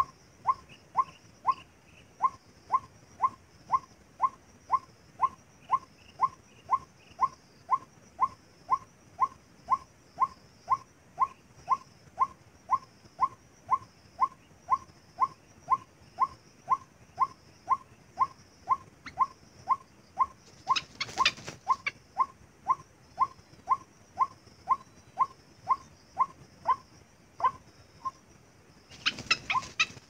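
White-breasted waterhen call, a short note repeated steadily about twice a second, the call used to lure waterhens in. Two brief rustling bursts come about two-thirds through and near the end.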